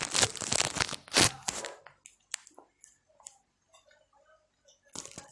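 Handling noise from the recording phone being moved and adjusted: rubbing and knocks against the microphone, dense and loud for the first two seconds, then scattered light taps.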